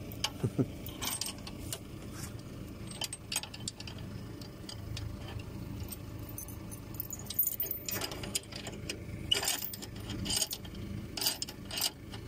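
Short, irregular metal clinks and rattles of a chain and wire being handled against the steel frame of a John Deere 349 square baler.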